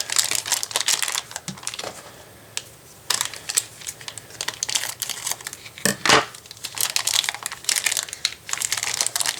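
Packaging crinkling and rustling with many small sharp clicks as parts are worked out of a tight LEGO train-motor box, with a louder crackle about six seconds in.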